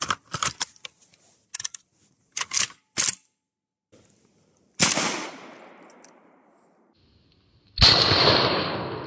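Saiga-12 semi-automatic 12-gauge shotgun: a run of short metallic clicks and clacks as the gun is handled, then a loud shot about five seconds in. A second loud blast comes near the end and trails off slowly.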